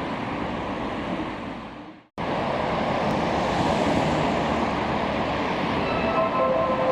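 Kobe subway train running, a steady rushing rumble. It fades out about two seconds in and starts again, and steady whining tones come in near the end.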